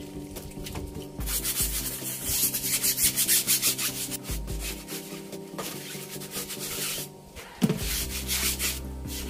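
Stiff plastic scrub brush scrubbing a wet, soapy rubber car tyre in rapid back-and-forth strokes, with a short pause about seven seconds in.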